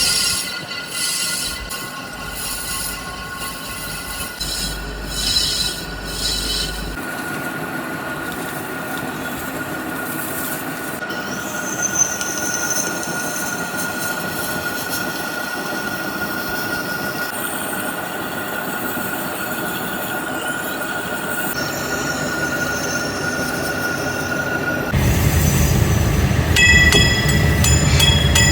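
Metalworking machinery running with a steady high-pitched squeal over a rushing mechanical noise. The sound changes abruptly a couple of times, and near the end a deeper rumble with ringing metallic tones takes over.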